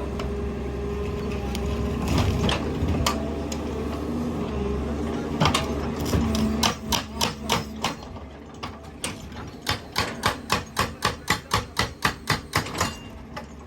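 Excavator's hydraulic rock breaker hammering on rock: from about six seconds in, sharp blows about three a second over the excavator's running engine.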